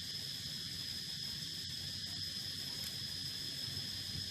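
Steady, unbroken high-pitched insect chirring, over a low background rumble.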